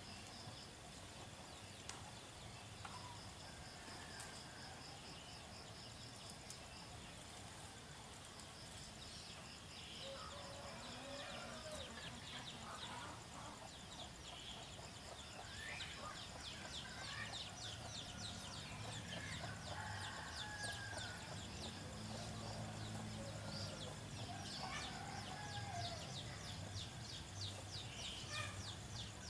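Faint rural ambience: chickens clucking, with calls coming more often from about ten seconds in, over a high, steadily pulsing insect trill.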